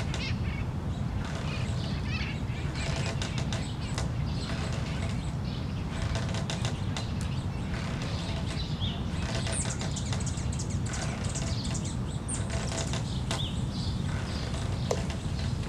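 Steady low outdoor rumble, with a few short high bird chirps about ten and twelve seconds in.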